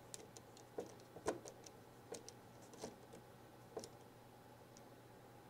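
Faint, irregular small ticks and clicks of a precision screwdriver turning small screws into the opened housing of a DJI RC smart controller; the clicks thin out after about four seconds.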